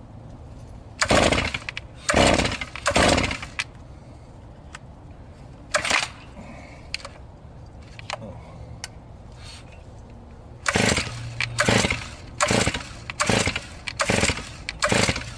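Chainsaw starter cord yanked over and over, the engine turning over in short whirring pulls without catching. There are three quick pulls, one more about six seconds in, then a fast run of about six pulls near the end. The owner reckons the engine is flooded.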